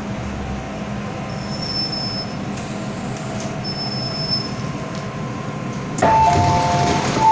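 MTR M-Train electric multiple unit standing at a station platform with a low steady rumble, and a faint high whine twice. About six seconds in, the doors open with a sudden rush of air and noise, followed by a repeating two-tone door chime.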